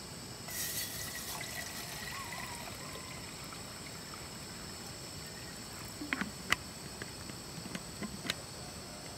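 Water poured from a plastic bottle into a titanium pot on a gas canister stove, starting about half a second in and tapering off over two to three seconds. A few sharp clicks follow later, the loudest about six and a half seconds in.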